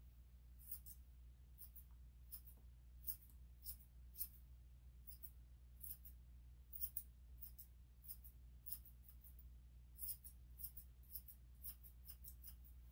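Grooming scissors cutting the long hair on a Chihuahua's foreleg: a string of short, soft snips, about two a second, over a steady low hum.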